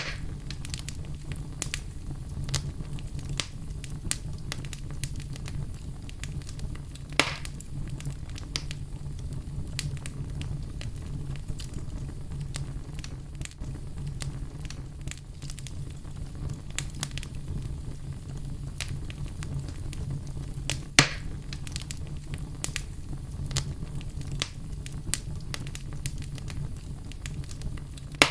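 Wood fire burning in a fireplace, crackling steadily over a low rumble of flames, with two louder pops, one about seven seconds in and one about twenty-one seconds in.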